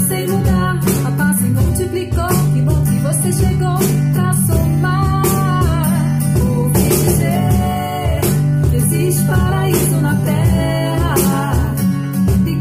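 Pop song with singing and guitar, with a cajón struck by hand in time with it.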